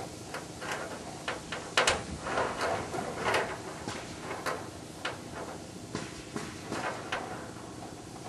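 Scattered knocks, clunks and short scrapes, a few each second, as the 12-foot aluminum rowboat and its loading gear are handled. The loudest clunk comes about two seconds in.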